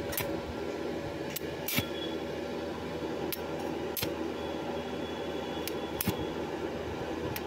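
Stick (arc) welding on a steel pipe: the arc crackles and sizzles steadily, with a few sharp pops scattered through it.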